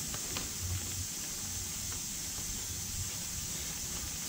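Steady hiss with a few faint small clicks as metal parts are handled.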